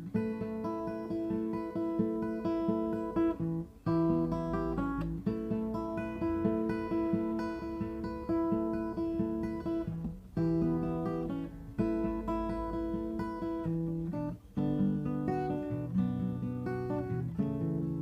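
Acoustic guitar strummed and picked through a chord progression, the chords changing every second or two, with a few brief breaks between passages.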